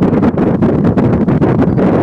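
Wind buffeting the camera's microphone, a loud, gusty rumble.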